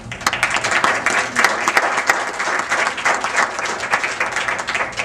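Audience applauding: many hands clapping in a dense, continuous patter.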